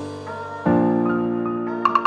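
Soft background music on piano: slowly fading sustained chords, with a new chord struck about two-thirds of a second in and a couple of light ticks near the end.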